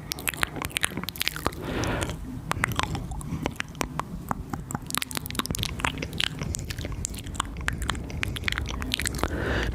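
Close-miked ASMR mouth sounds: a rapid, irregular stream of wet tongue and lip clicks and smacks, with a couple of short breathy hisses.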